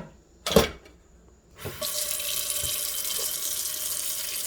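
A clunk, then a kitchen tap is turned on about a second and a half in, and water runs steadily into the sink.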